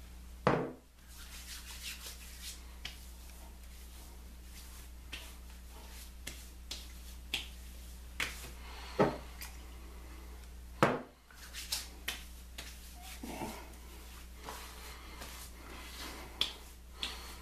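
Hands slapping and patting aftershave onto a freshly shaved face: irregular sharp slaps, the loudest about half a second in and again near nine and eleven seconds, with softer pats between.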